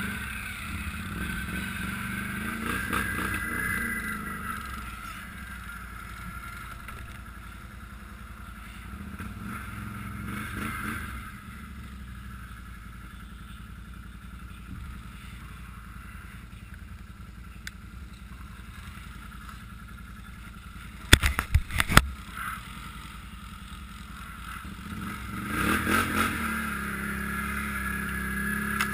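ATV engine running along a snowy trail, rising in revs a few times, with a cluster of sharp knocks about two-thirds of the way through.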